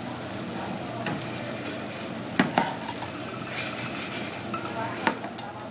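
Food sizzling on a hot hibachi teppanyaki griddle, a steady frying hiss, with a few sharp clinks of a metal spatula on the steel plate: two close together about two and a half seconds in and one near the end.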